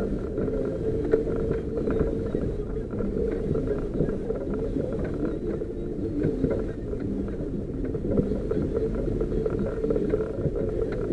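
4x4 vehicle's engine running steadily at low speed on a rough unsurfaced track, heard from inside the cab, with scattered knocks and rattles from the bumps.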